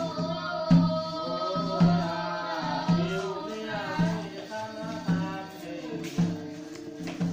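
Singing over a slow, steady drum beat, about one stroke a second.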